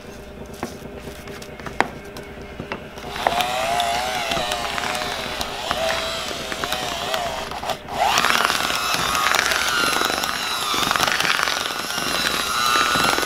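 Electric hand mixer beating thick mashed potato: its motor whine comes in about three seconds in, wavering in pitch as the beaters drag through the mash. Just before eight seconds in it drops out briefly, then comes back louder and higher-pitched.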